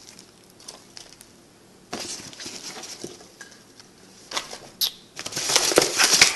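Packing material being handled in a cardboard box: light crinkling of plastic bubble wrap and scattered rustles, then a loud, dense rustle of foam packing peanuts being dug through during the last second or so.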